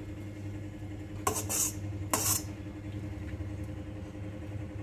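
A metal spatula scraping twice through rice against a stainless steel kadai, two short scrapes about a second apart, over a steady low hum.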